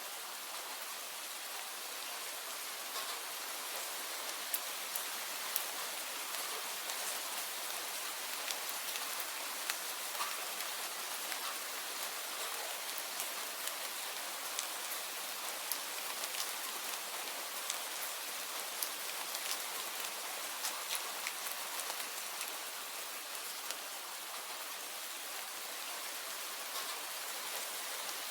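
Steady rain: a constant hiss of falling rain with many individual drops ticking sharply on a surface close by.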